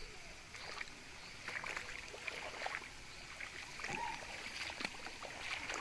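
Shallow stream running over rocks: a steady water hiss with scattered small ticks and splashes.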